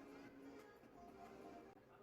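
Faint music, barely above near silence, with short held notes.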